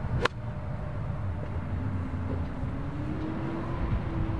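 A 54-degree wedge striking a golf ball: one sharp click about a quarter second in. After it, a steady low outdoor rumble with a faint hum slowly rising in pitch.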